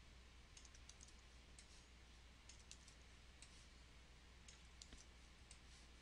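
Faint, irregular clicks of a computer mouse and keyboard while copying and pasting, over a low steady hum.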